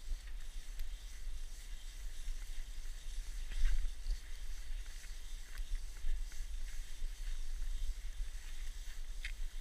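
Cross-country skiing heard from a camera carried by the skier: a steady low rumble of wind and movement on the microphone, with the hiss of skis gliding over snow and a few short crunches scattered through.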